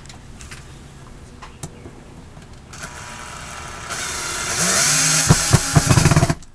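Handheld power drill driving a screw through a small metal L bracket into the wall. The motor starts about three seconds in, gets louder and rises in pitch, with several sharp clicks near the end before it stops suddenly.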